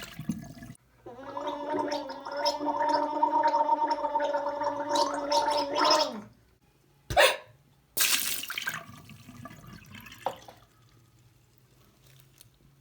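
A person gargling water: a steady, rough gurgle held for about five seconds. It is followed by a brief sharp sound and a couple of seconds of hissing noise.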